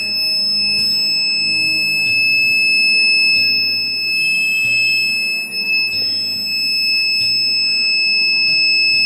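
Buzzer of a homemade fire alarm sounding one continuous high-pitched tone. It has been set off by a lighter flame heating the tube-light starter that serves as its heat sensor.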